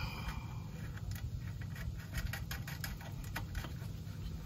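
Scattered light metallic clicks and scrapes of a nut and washer being handled and threaded onto a bolt by hand.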